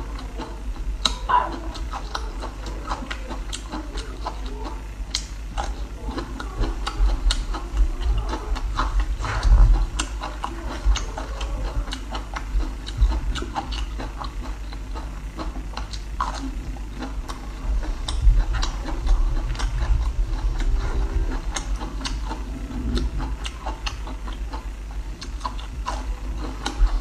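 Close-miked eating of a peeled bamboo shoot: irregular clicking and crackling from biting and chewing the fibrous shoot, over a steady low hum.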